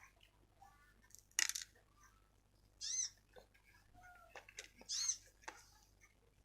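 Slime being worked by hand: sharp wet clicks and small pops, with two short high squeaks about two seconds apart.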